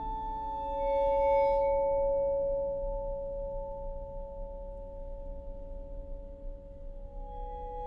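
Slow instrumental background music: a few held notes ringing and slowly dying away, with a new note struck about a second in.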